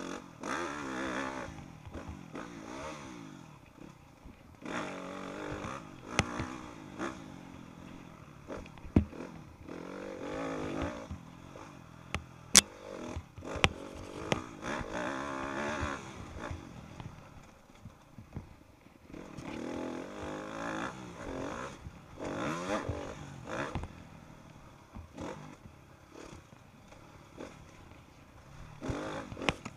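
Motocross dirt bike engine heard on board, revving up hard and easing off over and over through the track's straights and turns. A few sharp knocks come from the bumps; the loudest is about twelve and a half seconds in.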